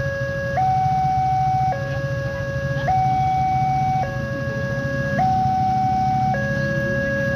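Railway level-crossing alarm sounding its electronic two-tone warning, a lower and a higher tone alternating about once a second, signalling that a train is approaching and the barriers are closed.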